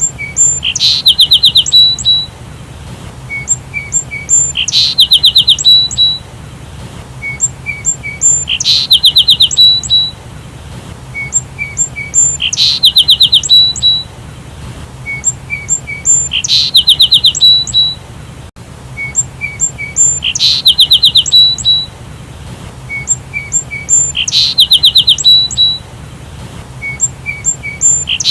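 Sparrow chirping, the same phrase repeating about every four seconds: a few short, separate chirps followed by a rapid run of high notes.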